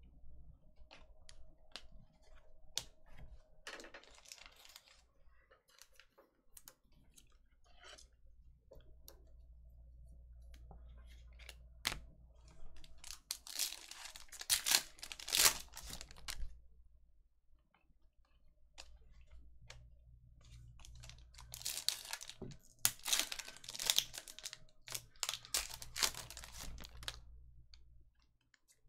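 A foil trading-card pack being handled and torn open, its wrapper crinkling, while the cards inside slide and click against each other. The crinkling comes in two louder stretches, about halfway through and again about three-quarters through.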